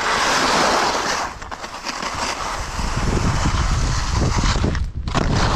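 Skis running and scraping over snow at speed, with wind rushing over a chest-mounted GoPro's microphone; the noise drops away briefly just before the end and comes straight back.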